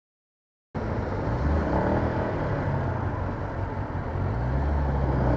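Yamaha MT-125 motorcycle's single-cylinder engine running, with road and wind noise. It cuts in abruptly out of silence less than a second in, and its note shifts a little.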